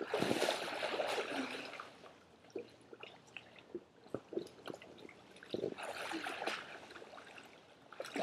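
Water splashing and sloshing in two bursts, the first over the opening two seconds and a shorter one past the middle, with scattered small splashes and drips between.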